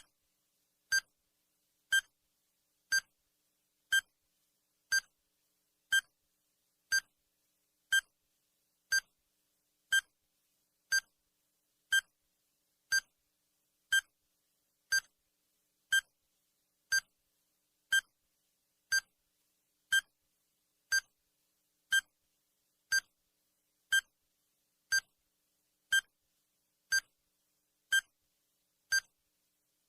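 Countdown timer's tick sound effect: a short, sharp electronic beep once every second, evenly spaced.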